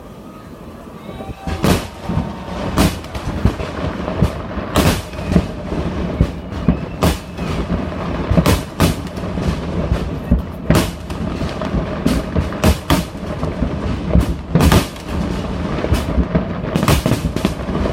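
Fireworks going off: a continuous low rumble of bursts, broken by sharp bangs about once a second.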